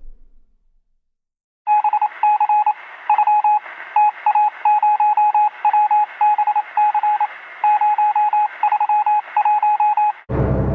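Sound-effect clip of electronic beeps: after a short silence, one steady high tone switches on and off in irregular short and longer beeps over a steady hiss, thin like a phone or radio line, then cuts off suddenly.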